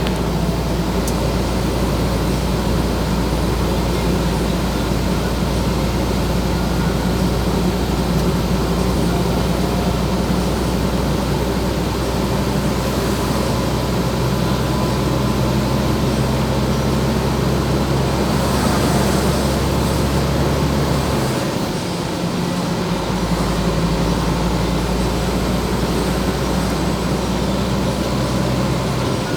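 Truck engine and road noise heard from inside the cab while driving, a steady drone. The engine hum changes pitch about twelve seconds in and dips out briefly around twenty-one seconds in.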